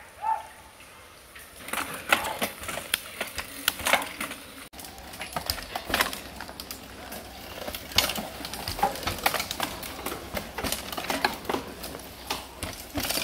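Mountain bikes passing on a dirt forest trail: a dense, irregular clatter of clicks and rattles from chains, freewheels and tyres on rough ground, starting after a quieter opening second or so.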